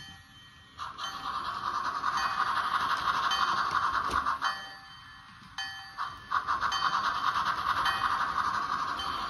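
Model steam train's sound system playing a fast hissing chuff that starts about a second in, drops out for a second or so in the middle and comes back. A bell dings about once a second behind it.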